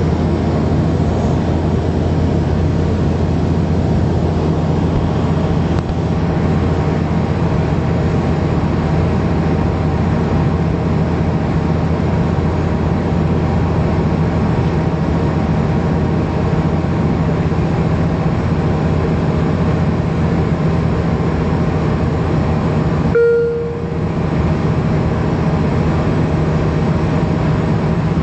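Cabin noise inside a Bombardier Q400 turboprop descending to land with its gear down: the steady drone of its two Pratt & Whitney PW150A engines and six-bladed propellers, dominated by a deep propeller hum. Late on, a short tone sounds once as the noise briefly dips.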